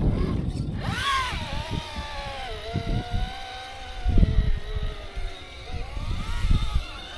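Motor and gear whine of an RC rock crawler, its pitch jumping up about a second in, then sagging and rising again as the throttle changes. Low thumps and rumbles run underneath, the loudest about four seconds in.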